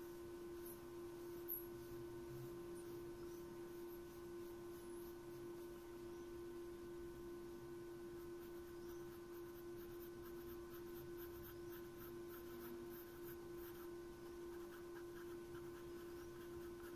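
Pencil scratching on paper in faint repeated strokes as straight hatching lines are drawn, over a steady electrical hum. A brief tap about a second and a half in.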